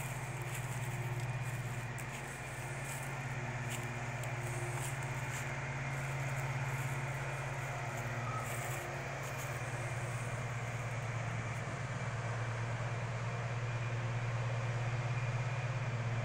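An engine idling steadily, a low even hum with a faint hiss over it.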